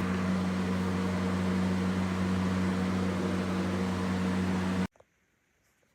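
A steady mechanical hum with a hiss over it, cutting off suddenly about five seconds in.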